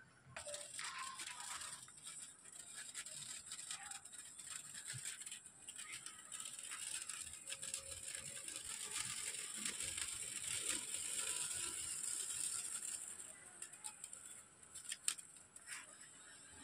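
Rotating sparkler (a hanging spinning fireworks sparkler) catching about half a second in, then burning with a steady fizzing crackle, thinning out with a few sharp cracks near the end.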